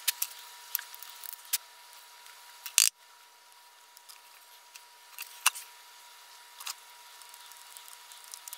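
Scattered light clicks and knocks of hands handling and fitting the plastic housing parts of a Stihl MS170 chainsaw, the loudest knock about three seconds in.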